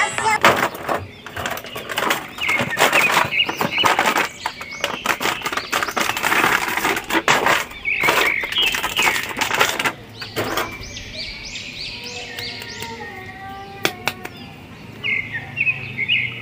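Clear plastic bag crinkling and rustling in dense, irregular crackles as an action figure is handled and pulled out of it, for about ten seconds. After that it goes quieter, and birds chirp repeatedly in the background.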